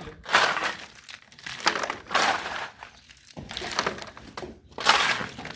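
Steel shovels scraping into and tossing sand and gravel, about five gritty strokes roughly once a second: concrete being mixed by hand.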